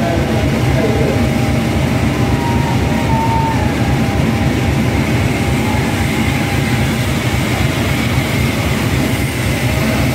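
Steam locomotive 45690 'Leander', a Jubilee Class engine, running slowly tender-first along the platform: a steady low rumble with no distinct exhaust beats. A faint thin squeal begins about a second in and lasts a couple of seconds.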